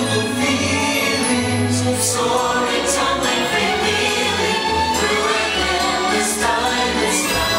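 Orchestral music with a choir singing, the soundtrack of a theme-park fireworks show.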